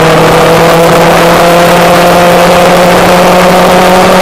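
Motorcycle engine heard from on board while riding, its revs climbing slowly and steadily as it pulls in gear, over a constant rush of wind and road noise.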